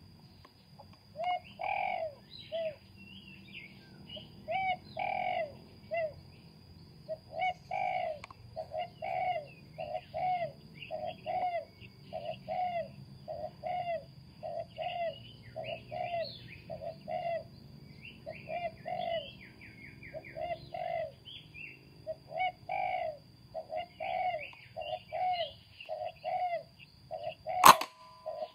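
Birds calling over and over, a low call note about twice a second with higher chirps above it. Near the end comes one sharp crack, the loudest sound: a PCP air rifle firing.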